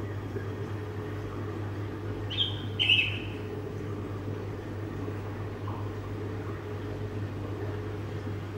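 Steady low hum of running aquarium equipment such as pumps, with two short high-pitched chirps close together about two and a half seconds in.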